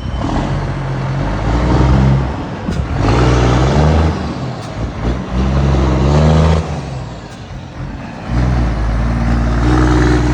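Scania truck diesel engine with an aftermarket chrome exhaust diffuser, revved four times: its pitch climbs with each rev and falls back to a rumbling idle in between.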